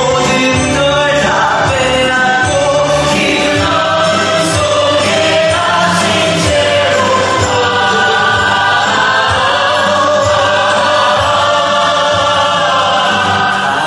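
Live musical-theatre song: a male lead singer and an ensemble choir singing together over a steady instrumental accompaniment with a regular beat.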